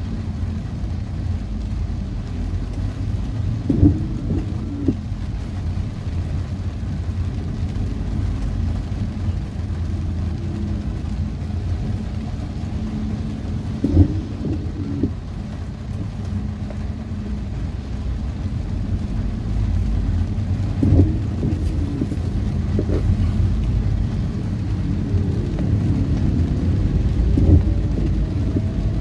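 Inside a car driving on a rain-soaked road in heavy rain: steady low rumble of tyres and engine with rain on the car, broken by a few short knocks.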